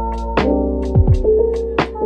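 Instrumental background music with a steady beat, sustained melody notes and a bass line.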